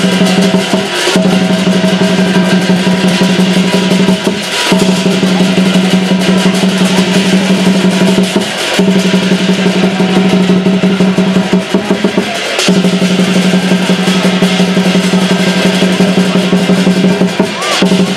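Lion dance drum played in a continuous rapid roll, a steady booming drone, broken by short pauses about every four seconds.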